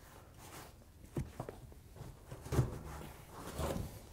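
Gloved hands pressing and patting a washer's fibre sound shield into the base of the cabinet. Faint rustling and a few soft dull thumps, the strongest a little past halfway.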